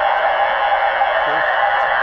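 Steady radio static hiss from an open drive-thru headset channel, heard through a scanner's narrow band-limited audio.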